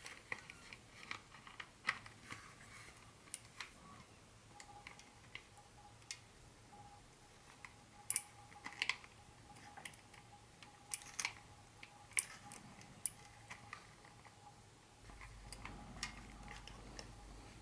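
Scattered clicks, taps and light rustles of hands handling packaging and model train parts, a few sharper clicks near the middle. A faint steady high tone hums underneath from about four seconds in.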